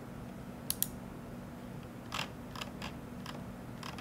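Computer mouse clicking: a sharp double click just under a second in, then five softer, irregular clicks from about two seconds in, over a low steady hum.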